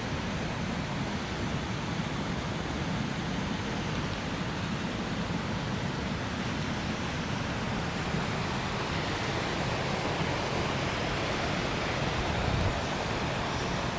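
Steady rushing noise, even and unbroken, with a brief low thump near the end.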